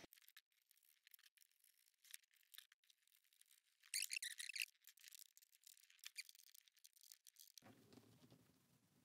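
Mostly near silence, with faint small clicks and a brief scratchy rattle about four seconds in: small metal nuts and washers being handled and threaded onto mounting bolts by hand.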